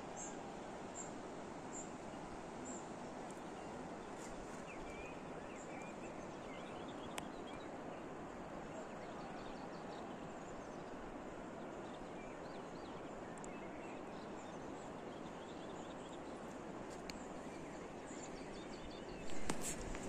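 Outdoor countryside ambience: a steady, even rushing noise with small birds chirping faintly over it, including a high note repeated about once a second. A brief louder burst of noise comes near the end.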